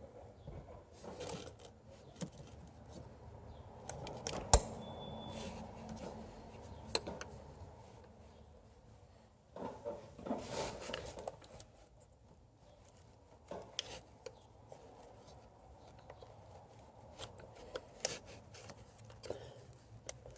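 Hands working the plastic ignition-coil connectors and coils on a V8 engine: scattered light clicks and rubbing, with one sharp click about four and a half seconds in.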